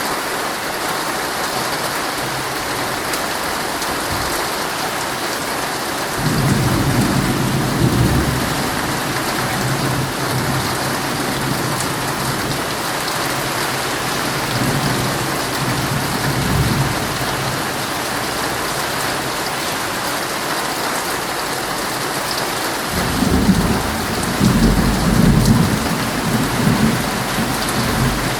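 Heavy rain drumming steadily on a tent, with thunder rolling in low rumbles three times: about six seconds in, midway, and a longer, louder one near the end.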